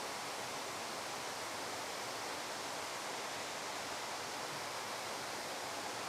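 Steady, even rush of a waterfall: falling water making a constant hiss with no breaks or other events.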